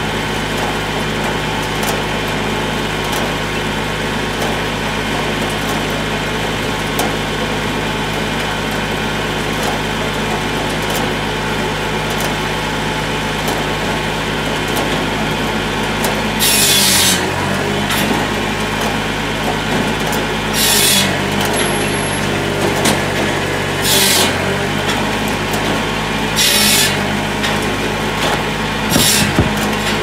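Massey Ferguson 1020 tractor engine running steadily, driving a Hakki Pilke OH60 firewood processor. In the second half the processor's saw cuts through slab wood about five times, each a short hissing cut a few seconds apart, and the engine note dips under each cut's load.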